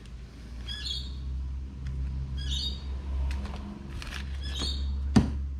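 A bird calling over and over, a short high chirping call about every two seconds, over a low steady hum. A single sharp knock sounds near the end.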